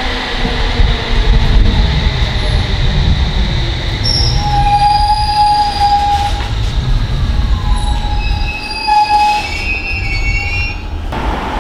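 London Underground District line S Stock train moving along the platform: a steady low rumble of wheels on rail, with several high-pitched wheel squeals from about four seconds in.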